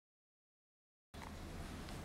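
Dead silence, then about a second in the room tone of the gym cuts in suddenly: a steady low hum under a faint hiss.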